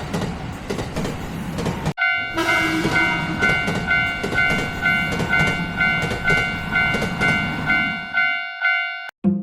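Train sound effect: a train rumbling and clattering over the rails. After an abrupt cut about two seconds in, a long held train horn sounds over the clatter and stops suddenly near the end.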